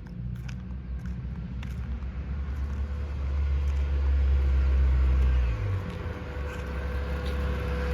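Car engine running with a low steady drone, growing louder from about three seconds in, then dropping off sharply a little after five seconds.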